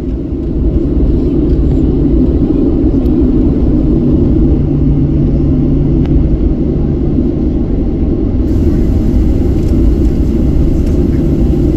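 Cabin noise inside a Boeing 737-700 taxiing: its CFM56-7B jet engines give a steady low rumble at taxi power, with a low hum running through it.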